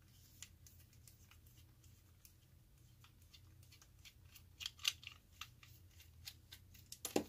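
A small screwdriver working tiny screws out of a plastic pepper grinder's housing: faint scattered metallic clicks and scrapes, with a few louder clicks about five seconds in and a louder clack at the very end.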